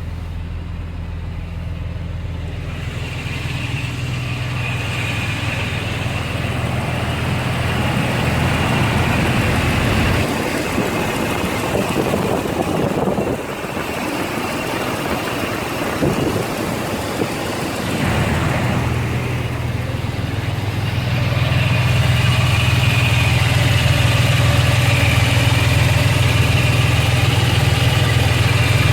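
2000 Jeep Wrangler's 4.0-litre straight-six idling with a steady whirr, a noise that goes away when the clutch is pressed. In the middle the steady low hum drops out for several seconds before coming back louder.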